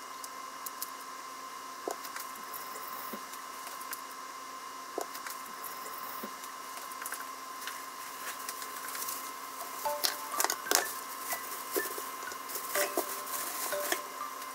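Salted water heating in a frying pan on a gas hob: a steady hiss and hum with scattered small ticks. From about ten seconds in, a run of sharper clicks and taps.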